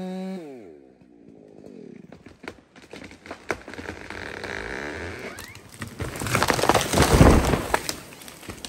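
Two-stroke chainsaw at full throttle dropping off and winding down just after the start. Then scattered knocks and cracks, and a loud crashing rumble about six to eight seconds in.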